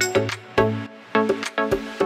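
Background music: short pitched notes in a steady rhythm.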